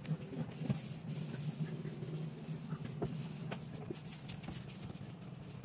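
Cloth being wiped over a stainless steel sink: a soft rubbing haze with a few light knocks, over a low steady hum.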